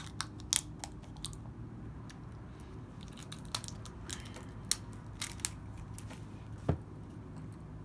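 Close-up mouth sounds of eating a Lucas Muecas chili-dipped lollipop: scattered short clicks and smacks of the candy against teeth and lips, over a steady low hum.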